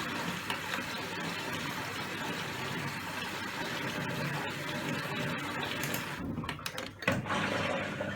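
Beko WMB81221LS washing machine running in test mode, a steady whir of pump and water, with a few clicks near the end. The drum does not turn, because the drive motor has failed.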